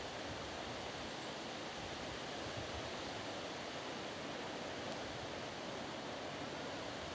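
Steady outdoor background hiss with light wind rumbling on the microphone; no distinct sound stands out.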